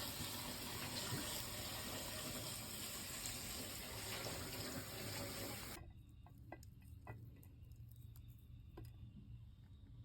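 Water running steadily from a tap, shut off abruptly about six seconds in. A few faint clicks and knocks follow.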